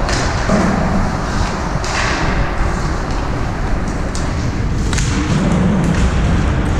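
Ice hockey play in an arena: several sharp knocks and thumps of sticks, puck and boards, with skates scraping the ice, over a steady low rumble.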